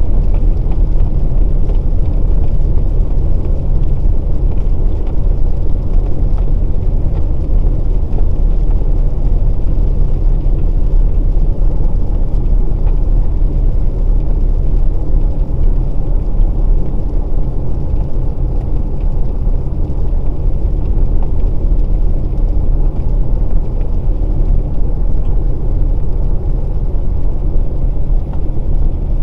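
A 2020 Volkswagen Passat Variant 1.6 TDI four-cylinder diesel being driven at a steady pace. It gives a steady low rumble of engine and road noise.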